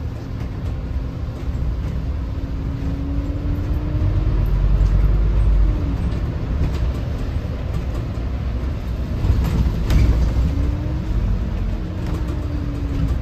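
Scania K280CB bus with its Scania DC09 five-cylinder diesel engine under way: a steady low rumble with a whine that climbs, falls away about six seconds in, and climbs again from about ten seconds. A few short knocks come about nine to ten seconds in.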